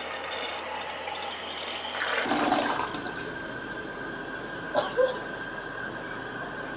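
Toilet flushing: water swirling and draining from the bowl, then the bowl and tank refilling with a steady hiss. The sound shifts about two seconds in.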